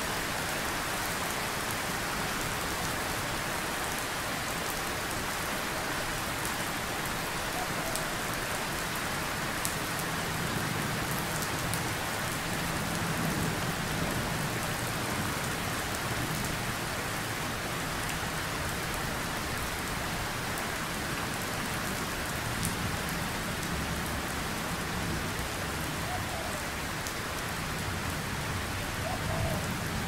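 Steady rain falling, with a low rumble of distant thunder that swells and fades about midway.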